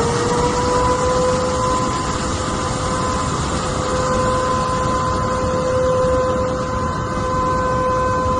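Continuous roar of rushing floodwater, with a steady high tone held at one pitch over it throughout.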